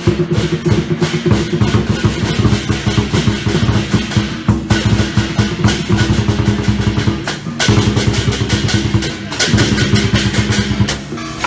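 Chinese dragon-dance percussion: a large barrel drum beaten in a fast, driving rhythm with crashing cymbals. It is loud and continuous, and the pattern breaks and starts again twice.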